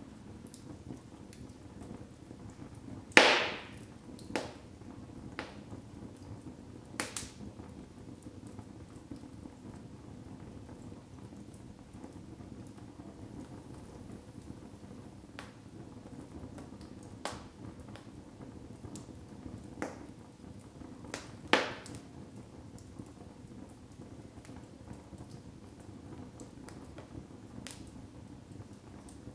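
Wood logs burning in a fireplace: a steady low rush of flame with scattered sharp crackles and pops. Two loud snaps stand out, one about three seconds in and another about eighteen seconds later.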